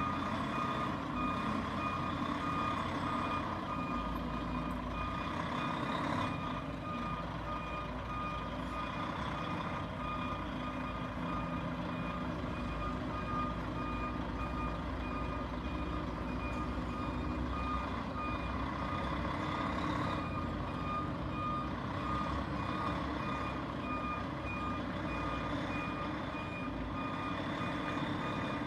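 Truck's reversing alarm beeping in a steady repeating pattern over the truck's engine running.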